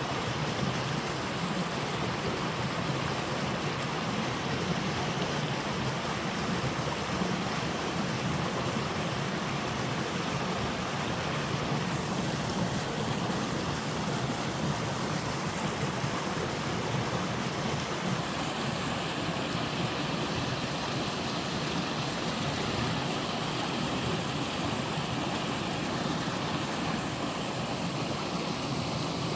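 Three-tiered waterfall pouring steadily: an even, unbroken rush of falling water, heaviest low in pitch.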